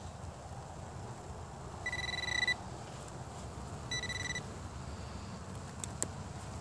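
Handheld metal-detecting pinpointer probed into a clump of dug soil, sounding two steady high electronic tones, the first about two seconds in and lasting under a second, the second shorter about a second later: the signal that it has found metal in the dirt. A light click near the end.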